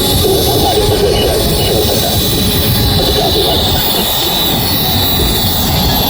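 Military jet aircraft engine noise, loud and steady.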